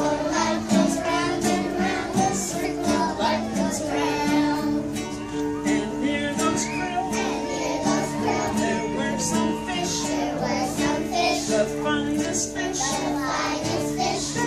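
A class of young children singing a song together, accompanied by a strummed acoustic guitar.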